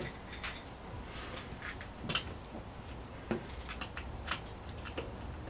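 Scattered light clicks and taps, about seven spread irregularly, as hands fit screws into a white sheet-metal wall bracket against the wall.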